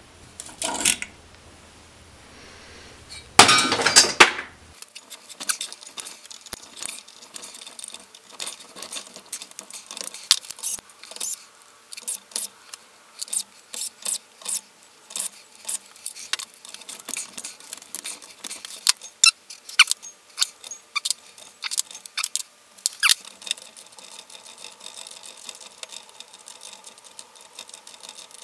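Socket ratchet clicking in quick runs and small steel parts clinking while the camshaft bearing cap bolts of a BMW M54B30 cylinder head are undone and the caps lifted off. A louder metal clatter comes about three to four seconds in.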